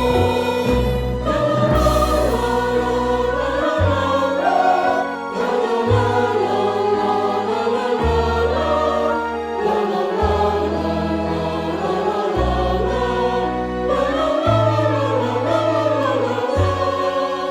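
Music with a choir singing over sustained bass notes that change every second or two.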